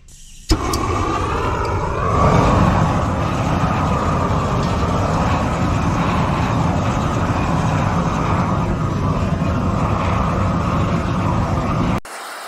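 Propane torch lit with a sharp pop, then opened up so its flame rises with a brief whistle into a loud, steady rush of burning gas that stops abruptly near the end.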